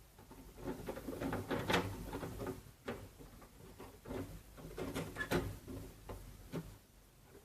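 Handling noise from bench work: irregular light clicks and knocks with some rustling, in clusters, the sharpest about two seconds in and again a little past five seconds.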